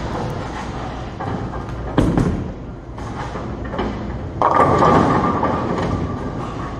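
Bowling ball rolling down the lane, then crashing into the full rack of pins about four and a half seconds in, with about two seconds of loud pin clatter as all ten go down for a strike. A single sharp thud sounds about two seconds in.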